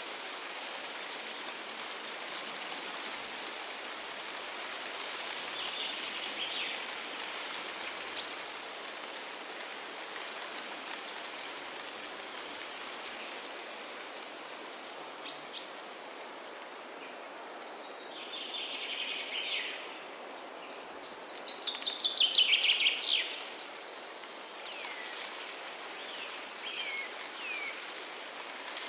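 Wild birds calling now and then over a steady outdoor hiss. There are scattered short chirps and down-slurred whistles, and about three-quarters of the way through a louder, rapid run of short notes.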